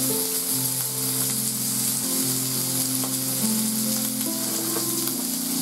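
Meat sizzling on a hot ridged griddle plate, a steady frying hiss, over held notes of background music that change every second or so.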